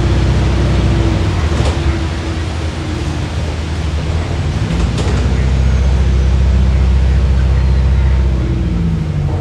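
Hybrid bus heard from inside the saloon, its low drivetrain rumble running throughout. A faint high electric whine slides down in pitch over a couple of seconds as regenerative braking slows the bus, and the low rumble swells again in the second half.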